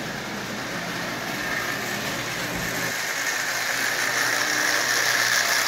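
Marx toy O-gauge steam locomotive with a Marx double-reduction electric motor running on tinplate three-rail track at 40% power, pulling four passenger cars: a steady whir of motor gears and rumble of wheels on the rails. It grows louder from about halfway through as the train comes past.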